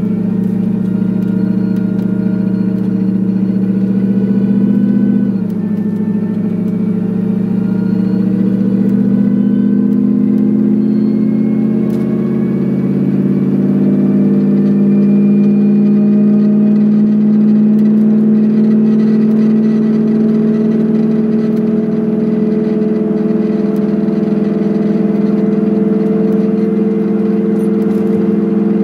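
Supercharged Ford Lightning V8 running, its pitch stepping down about five seconds in, then climbing slowly for about ten seconds and holding steady. The owner reports a strange sound from this engine in the 2000–2500 RPM range, starting around this point in the recording.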